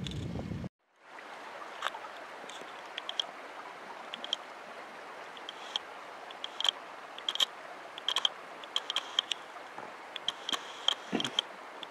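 Brief wind buffeting the microphone, cut off abruptly within the first second. Then snowmelt water runs and gurgles among boulders beneath a snow bridge: a steady rushing hiss with many small splashes and drips.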